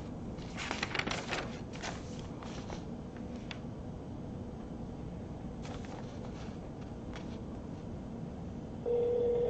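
A few soft clicks and taps over a low hiss. Near the end a steady telephone tone starts as a call is placed.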